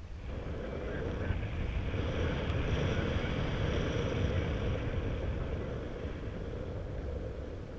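Wind rushing over the microphone of a camera on a paraglider in flight: a steady noisy rush, a little louder in the middle.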